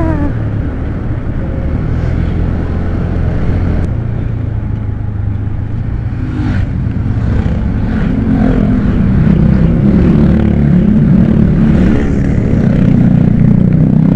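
Motorcycle engine running while riding in traffic, with steady road noise, growing louder about halfway through.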